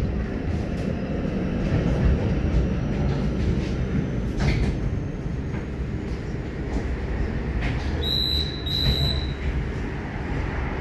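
Moderus Alfa low-floor tram running on its rails: a steady low rumble with a few sharp knocks and a faint whine rising slowly in pitch. About eight seconds in there are two short high beeps, one after the other.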